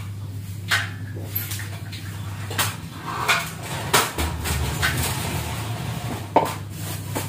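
Kitchenware being handled on a counter: dishes, utensils and a plastic bowl knocking and clinking in about eight separate short knocks, over a steady low hum.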